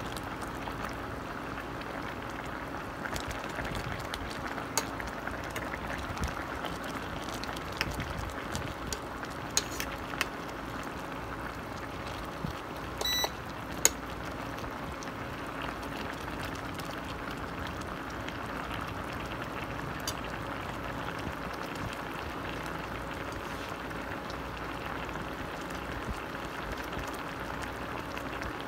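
Chicken adobo simmering in its soy-and-vinegar sauce in a stainless steel pot, with a steady bubbling. A metal spoon clinks against the pot a few times in the first half, one knock ringing briefly.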